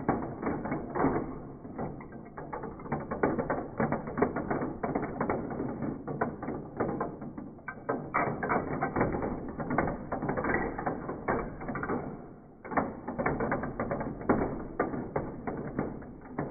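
Metal marbles clicking and clattering down a plastic marble run, heard slowed down, so the clicks come out low and dull. The clicks come thick and fast, thin out in a short lull about three quarters of the way through, then pick up again.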